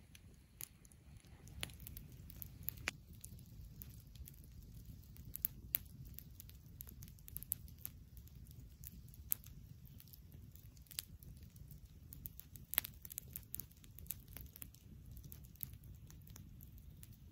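Wood campfire crackling, with irregular sharp pops and snaps over a low, steady rumble.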